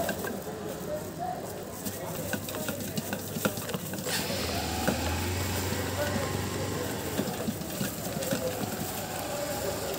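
A long wooden masher working masala in a steel pot, making irregular knocks and scraping against the metal. Voices and a low steady hum run behind it.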